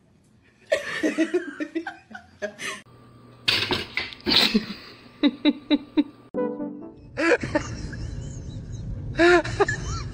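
Laughing in short choppy bursts, with music in places.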